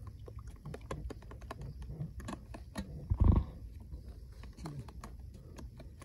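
Metal spoon beating eggs in a plastic container: quick, irregular clicks and scrapes of spoon on plastic. A single dull thump about three seconds in stands out above them.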